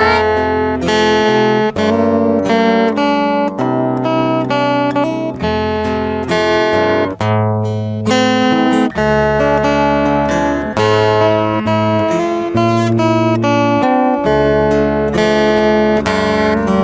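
Background music: strummed and plucked acoustic guitar with a bass line, in a steady rhythm.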